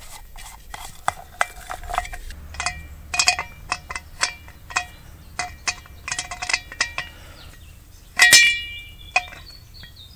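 Open-end spanner clinking against the valve nut on a metal pressure tank as it is fitted and turned to loosen the nut: a string of irregular, sharp metallic clinks, each with a short ring, the loudest a little after eight seconds in.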